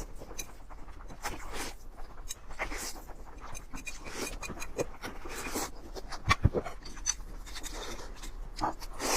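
Close-miked eating of noodles: irregular slurping and wet chewing sounds, with a sharp knock about six seconds in.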